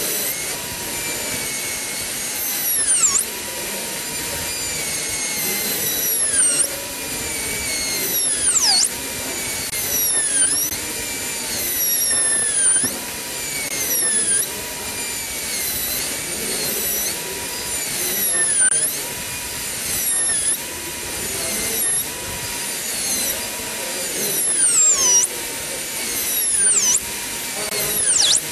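High-speed air-turbine dental handpiece whining as its bur cuts a model tooth. Its pitch drops sharply every two seconds or so as the bur bears on the tooth, then climbs back as it is eased off.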